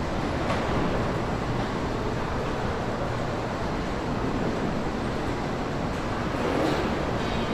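Steady mechanical rumble, like a vehicle running, with no distinct knocks or tones.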